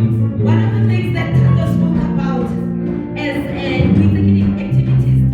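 Live gospel praise music: a loud bass line and drums with voices singing over them.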